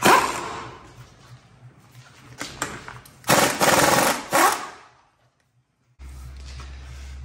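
Hand-held power tool rattling in rapid hammering bursts against a rust-seized front steering knuckle: a short loud burst at the start, then a longer burst of about a second around three seconds in. After a cut, a steady low hum near the end.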